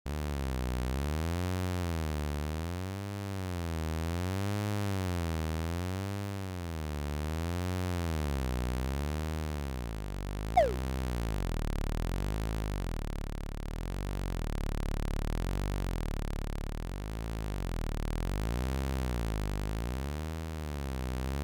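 Synthesized low buzzing tone whose pitch slowly wavers up and down, about once every one and a half seconds. About halfway through comes one quick, loud falling whistle.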